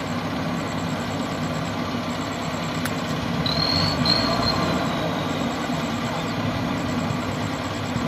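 Diesel engines of heavy earth-moving machines, a backhoe loader and a wheel loader, running steadily. A brief high-pitched squeal in two short parts comes about halfway through.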